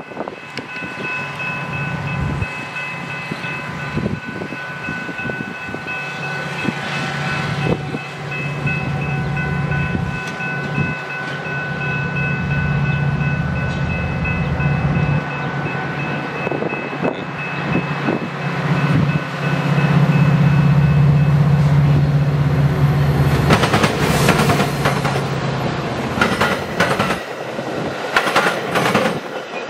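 Metra commuter train approaching a grade crossing and then passing. A steady multi-note warning tone sounds over a low engine rumble that builds up. The tone stops about two-thirds of the way in, and the wheels start clattering rhythmically over the rail joints and crossing.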